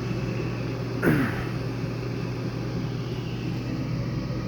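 Amana Air Command furnace blower running steadily with a constant hum after the burner has failed to ignite and the gas has shut off. About a second in there is one brief, louder sound that drops quickly in pitch.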